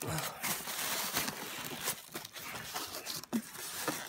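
Cardboard box and plastic packaging handled and pulled apart by hand: irregular rustling, scraping and crinkling, with a few short knocks.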